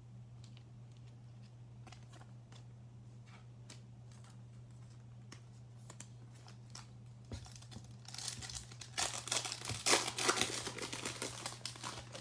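Foil wrapper of a trading-card pack torn open and crinkled: faint scattered ticks of handling, then a loud crackling stretch of tearing about eight seconds in, lasting some three seconds. A steady low hum lies underneath.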